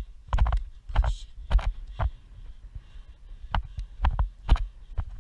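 A pony's hooves thudding on turf at a canter, picked up close by a camera worn on the rider. The thuds come about twice a second, with a short lull near the middle.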